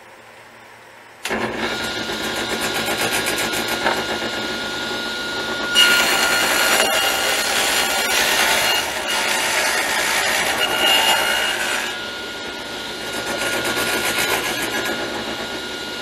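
Table saw running, its blade raised 3/8 inch to cut a rabbet in a 3/4-inch pine board that is pushed along the fence with a push block. The saw starts up suddenly about a second in and gets louder for about six seconds in the middle while the blade is in the wood.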